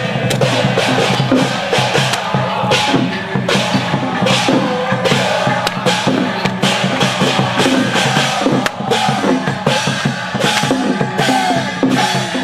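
Loud music with heavy, continuous drumming and frequent sharp strikes, over a crowd.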